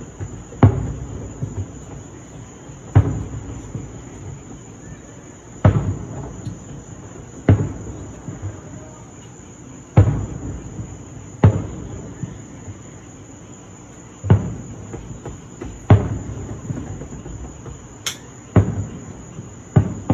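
Fireworks shells bursting: about ten sharp booms a second or two apart, each trailing off in a rumble. A steady high trill of crickets runs underneath.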